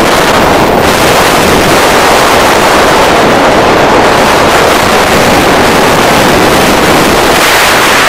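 Air rushing over the camera's microphone in paraglider flight: a loud, steady wind roar.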